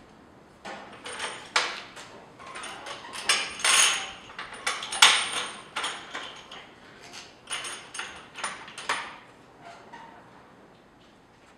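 Metal kiln door being latched shut: an irregular run of metallic clanks, clicks and rattles as its latch and clamp are fastened, loudest about five seconds in, stopping near the end.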